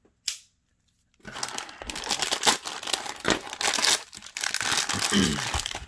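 Plastic toy packaging crinkling and tearing as it is handled and pulled open, a dense run of irregular crackles that starts about a second in.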